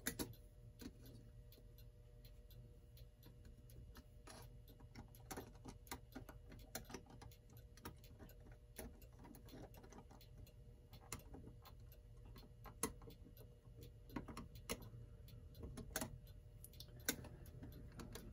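Faint, unevenly spaced metallic clicks of a small screwdriver prying at a clock's friction-fit hands, which are stuck tight on their stem.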